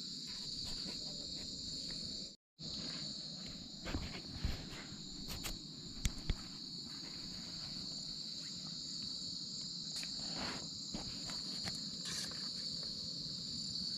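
Crickets and other insects chirring steadily in a high band, with a few faint knocks about four and six seconds in. The sound drops out briefly about two and a half seconds in.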